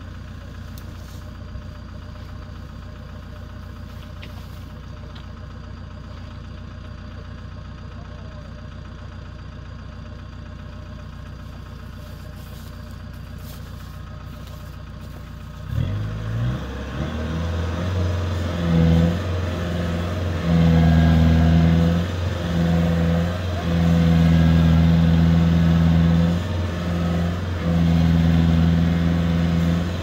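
Engine of a rice combine harvester running at a steady low idle. About halfway through it becomes much louder, its pitch stepping up and down as it is worked harder.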